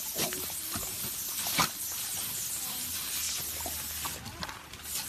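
Garden-hose spray nozzle hissing out a fine mist while an American Bully snaps at the water through a wire kennel panel. There are a few sharp snaps, the loudest about one and a half seconds in. The spray cuts out briefly near the end, then starts again.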